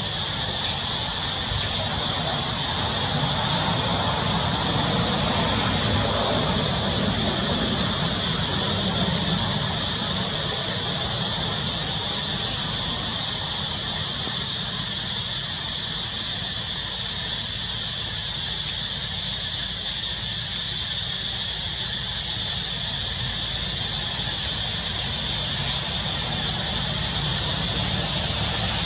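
Steady outdoor background ambience: a constant high-pitched drone over a low rumble, without change and with no monkey calls.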